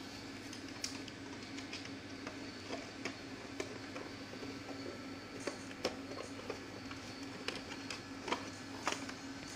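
Light clicks, ticks and rustles of a thin film sheet and plastic parts being handled inside an opened LCD projector, irregular and scattered, over a steady low hum.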